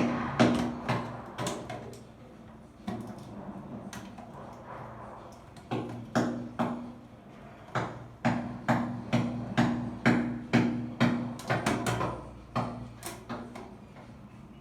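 A series of sharp knocks and taps, some in quick clusters and then a fairly even run of about two a second, with short quiet pauses between groups.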